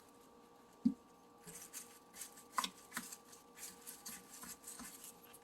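A spoon scooping and packing a homemade dishwasher-tab mixture into an ice cube tray lined with cling wrap. There is one knock about a second in, then a run of quiet scraping and rustling strokes with a few light taps.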